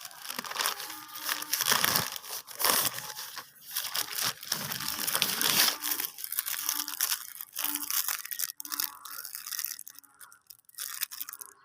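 Parcel packaging being torn open and crumpled by hand: irregular crinkling and crackling with louder tearing bursts, busiest in the first half and thinning out toward the end.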